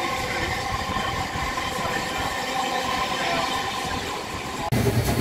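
Steady running noise of a vintage steam-hauled passenger train heard from aboard a moving carriage: wheels on the rails and the carriage rumbling. Near the end it abruptly becomes louder and heavier.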